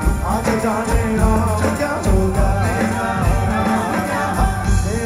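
Live rock band playing loud through a concert PA, with a steady drum beat, electric guitar and a sung melody.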